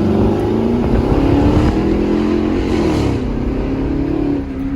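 Straight-piped Chrysler 300C's Hemi V8 exhaust under acceleration: the engine note climbs in pitch for about three seconds, drops sharply as the revs fall, then holds steady. The muffler and resonator have been replaced with straight pipe.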